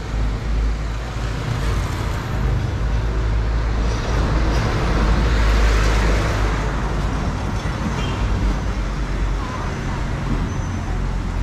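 City street traffic with a heavy low rumble; a motor vehicle passes close, loudest about halfway through.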